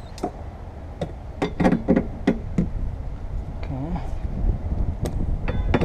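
Plastic trim clips and molding being pressed and snapped into place on a car's windshield cowl: a series of sharp clicks and knocks, several in quick succession in the first half and a few more near the end, over a steady low rumble.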